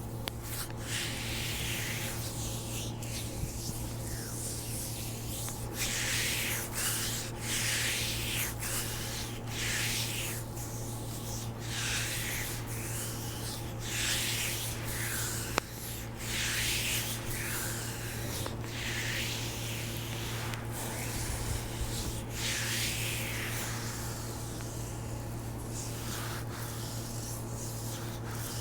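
Hands rubbing and stroking the skin of a man's bare foot in rhythmic strokes, about one a second, close on wrist-worn microphones, over a steady low electrical hum. A single sharp click comes about halfway through.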